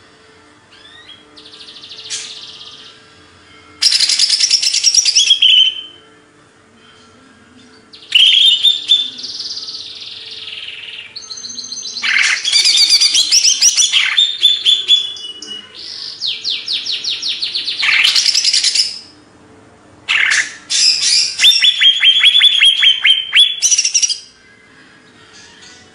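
A cucak ijo (a leafbird) singing in loud, energetic bursts. There are five phrases of rapid, high chattering notes and fast trills, one with a long arching whistle, separated by short pauses.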